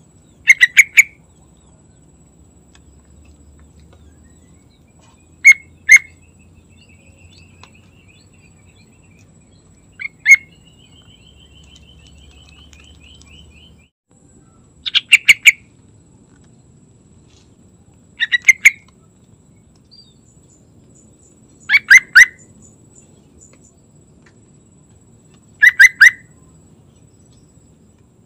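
Yellow-vented bulbul singing in short loud phrases of three or four quick notes, about seven phrases spaced three to four seconds apart. A fainter rapid trill fills two of the gaps, about a quarter and half way through.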